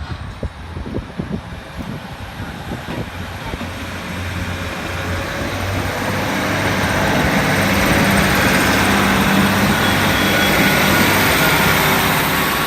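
ScotRail Class 156 diesel multiple unit passing over the level crossing: the diesel engine drone and wheel-on-rail noise build up over several seconds, stay loudest from about eight to twelve seconds in, then begin to fall away.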